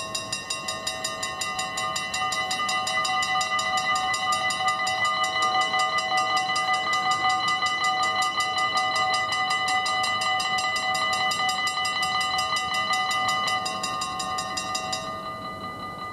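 Dutch level-crossing warning bells start ringing suddenly as the red lights come on, a fast, even run of bright metallic strokes, while the barriers lower. About fifteen seconds in, with the barriers down, the ringing turns softer and thinner.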